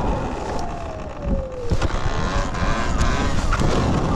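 Talaria Sting electric dirt bike's motor whining as it is ridden, the pitch falling steadily over the first second and a half and gliding up and down again near the end. Under it a rumble of wind and trail noise, with a few short knocks.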